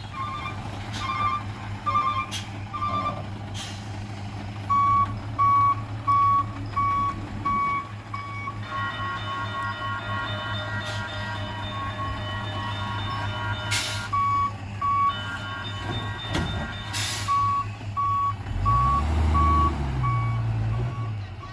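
Truck reversing alarm beeping at a steady pace of about two beeps a second, over the steady low running of the truck's engine. For a few seconds in the middle a continuous several-toned whine sounds with the beeps, and the engine rumble swells briefly near the end.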